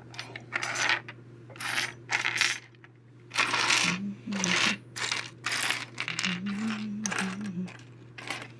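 Small figurines clicking and clattering against one another and the tabletop as they are rummaged through and picked up, in a string of short irregular bursts.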